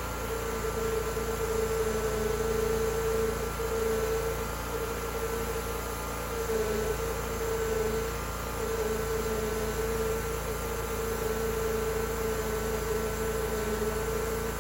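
Homemade wide band sawmill running with a steady hum, which dips briefly a few times.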